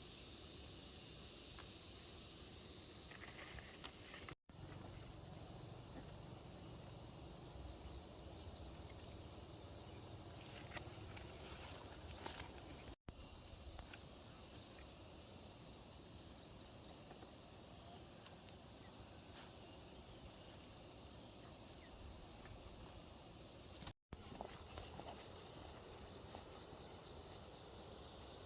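Insects chirring steadily in a high, finely pulsing drone, cut off for a split second three times.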